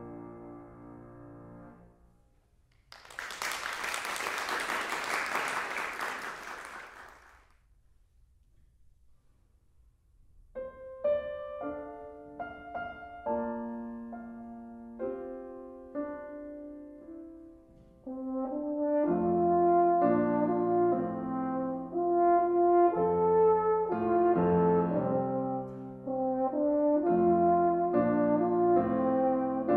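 A final chord from French horn and piano fades away, followed by about four seconds of applause. After a short pause, a solo piano introduction begins, and a French horn joins it about two-thirds of the way through, playing a melody in held notes over the piano.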